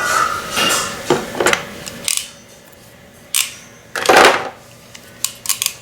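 Hand crimping tool being worked on a terminal: metallic clinks and rustling handling noises, with a quick run of sharp clicks near the end.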